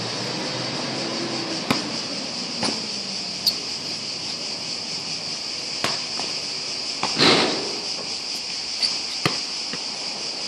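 Cicadas keep up a steady high buzz while a basketball knocks sharply on the outdoor court a handful of times, the loudest knock about seven seconds in.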